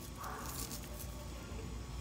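Faint, light rustling of chopped green herbs scattered by hand onto creamy pasta, over a low steady hum.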